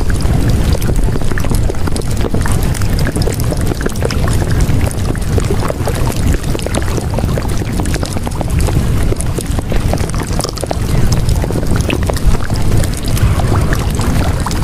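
Loud, steady rushing noise with a heavy low rumble and a scatter of fine crackles, much like running water or surf, holding at an even level throughout.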